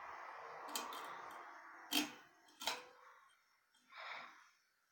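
Rustling, then a few sharp clicks, the loudest about two seconds in and again just after, and a soft puff of noise near the end.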